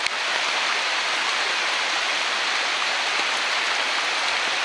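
Rainwater runoff rushing fast through a narrow stone-walled channel: a steady, loud rush of churning whitewater, with the channel running high after rain.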